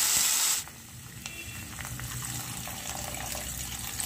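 Water poured from a jug into a hot pan of roasted samak rice. A loud sizzling hiss cuts off suddenly about half a second in. After it comes the quieter splash of a stream of water pouring into the liquid already in the pan.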